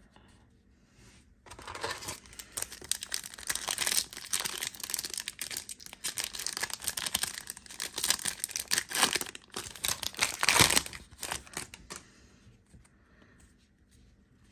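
A Panini Contenders trading card pack being torn open and its wrapper crinkled: a dense run of crackling and rustling starting about a second and a half in and stopping about two seconds before the end, loudest shortly before it stops.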